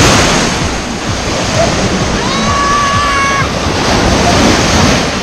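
Ocean surf breaking and washing up the shallows close to the microphone, loudest at the start as a wave breaks, with some wind on the microphone. About two seconds in, a single long high-pitched call sounds over the surf for about a second.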